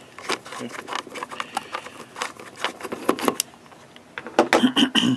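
Screwdriver backing a screw out of a hard drive's lid, a string of small irregular clicks and scrapes, with a louder clatter near the end.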